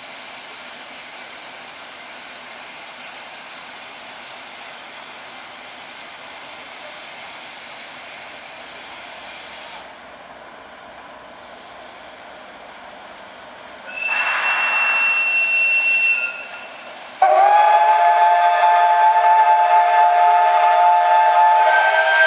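Soviet L-class steam locomotive venting steam with a steady hiss. About 14 seconds in a short, high single-note whistle sounds. About three seconds later a loud, long steam whistle sounding a chord of several tones starts abruptly and is held, the departure signal.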